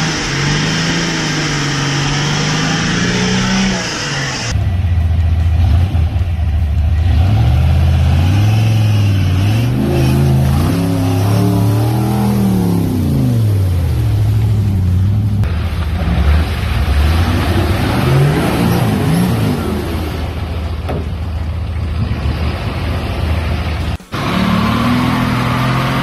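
Off-road 4WD engine revving up and down under load in the mud, its pitch rising and falling over and over. The sound changes abruptly a few times.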